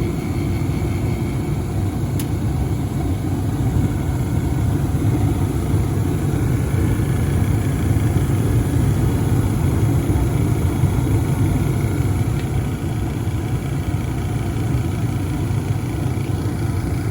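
Residential furnace running with a steady low rattling vibration, which the owner puts down to a worn rubber washer or mount at a bearing letting the part vibrate.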